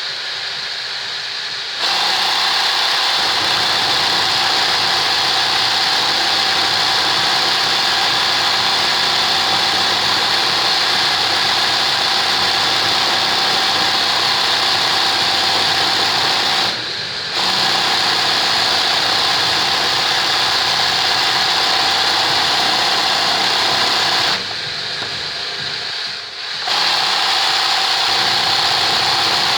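Sewing machine running fast for manual (free-motion) embroidery: a steady whir of continuous stitching that starts about two seconds in. It breaks off briefly twice, once for well under a second and once for about two seconds, leaving a quieter motor hum.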